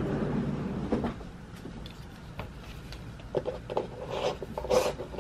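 Plastic lid of a paper coffee cup being handled and fiddled with: scattered small clicks, taps and rubs that grow busier and louder in the last two seconds.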